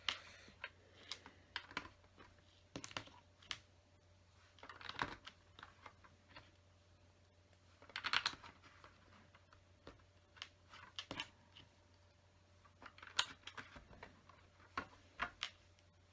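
Plastic LEGO bricks clicking and rattling as pieces are handled and pressed onto the build, in scattered clusters of small clicks.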